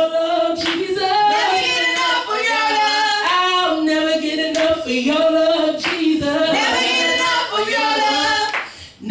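Two women singing a gospel worship song together into microphones, with hand claps every second or so. The singing breaks off briefly near the end.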